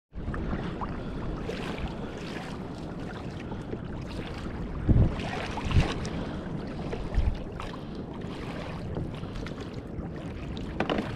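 Water sloshing and lapping along the hull of a Hobie Revolution 13 pedal kayak under way on the open ocean, with wind buffeting the microphone. A few low thumps stand out about halfway through.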